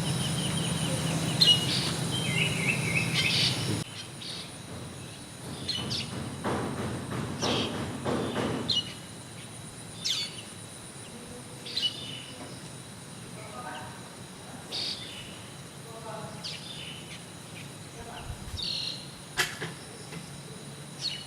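Wild birds chirping and calling in short separate phrases every second or two over a steady high whine. About four seconds in, a louder background with a low hum cuts off abruptly, and a brief rush of noise passes near the middle.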